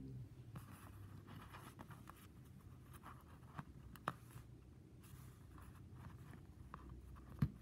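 Faint handling noise of a plastic Kenner Super Powers Wonder Woman action figure being turned over and moved about on a surface by hand: light rustling and scraping with a few small taps, the sharpest near the end.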